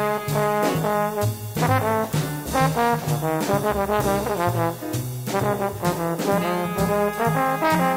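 Hard bop jazz recording: a trombone solo line over walking bass and drums.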